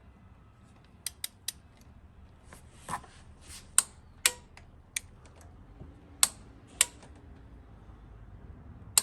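Torque wrench ratcheting in about ten sharp, irregularly spaced clicks, three quick ones about a second in, as a spark plug is turned down toward 15 ft-lb.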